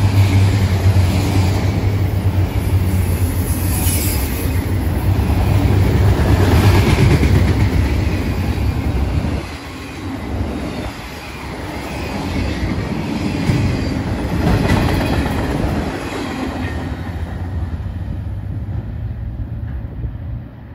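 Freight train of autorack cars rolling past, a steady rumble with wheels clacking over the rail joints and occasional wheel squeal. The noise drops about nine seconds in and keeps fading as the train draws away.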